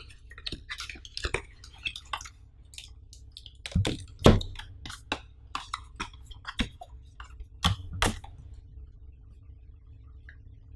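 Paperboard box being opened and handled: a run of short taps, clicks and rustles from the cardboard flaps and the plastic-wrapped charger, with a couple of louder knocks about four seconds in. The handling stops a little after eight seconds, leaving only a faint low hum.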